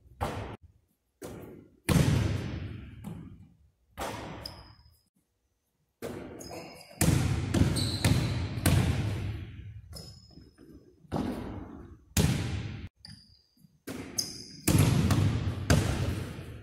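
A basketball bouncing on a hardwood gym floor during shooting and passing, about ten sharp, uneven thuds, each ringing out in the big hall's echo.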